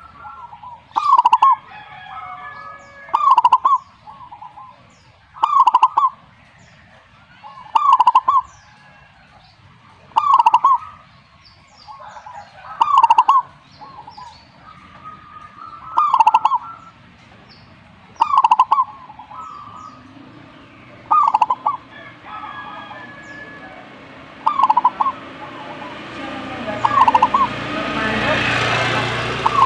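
Zebra dove (perkutut) calling again and again, one short cooing phrase every two to three seconds. A rushing noise swells under the calls near the end.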